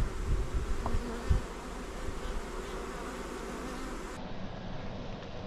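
Honeybees buzzing around an open hive, with a few low thumps in the first second and a half.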